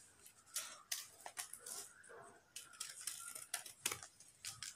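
Scissors snipping through folded paper: a faint series of quick, irregular cuts, starting about half a second in.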